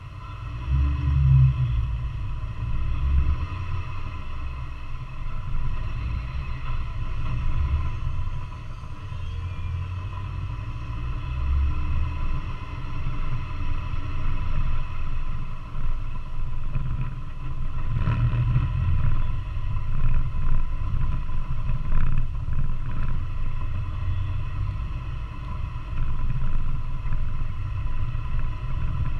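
A 4x4 driving slowly over a rough sandy dirt trail, heard from the hood: a continuous low engine and tyre rumble that swells and eases with the bumps, with a few knocks from the bouncing vehicle.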